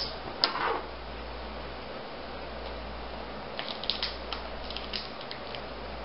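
Small plastic parts packet being handled: a brief rustle about half a second in, then a run of small crinkling clicks about four seconds in, over a steady low hum.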